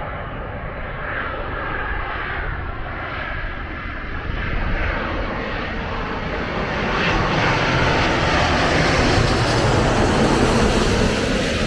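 Airbus A350 jetliner on approach with landing gear down, its jet engine noise a steady rushing that grows louder and brighter as the plane comes in low overhead, loudest near the end.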